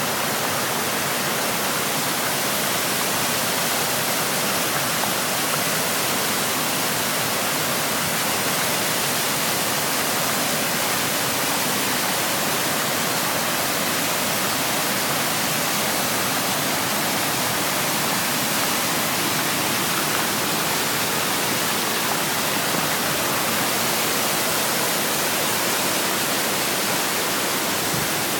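High Falls on the Little River: falling water rushing steadily, heard close up at the base of the falls as one dense, unbroken hiss.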